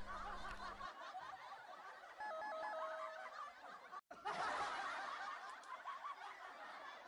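Audience laughing and chuckling quietly at the screening. About two seconds in, a short run of stepped electronic beeps plays, and the sound cuts out for a moment about four seconds in.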